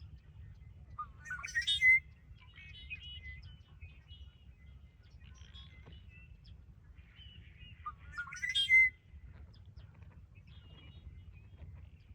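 Red-winged blackbird song: two loud songs about seven seconds apart, each rising into a buzzy trill, with softer chirps and calls between them.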